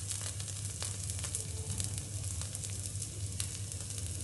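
Paneer cubes, fried golden brown, still sizzling in oil on a hot flat pan with fine crackles. A steady low hum runs underneath.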